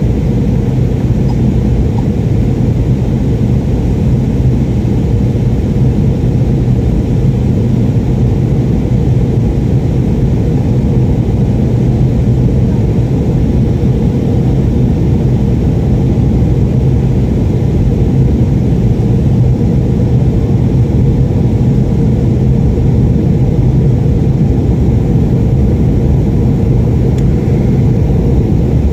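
Jet airliner cabin noise during the climb after takeoff: engines and rushing air make a steady, deep drone with a constant low hum underneath.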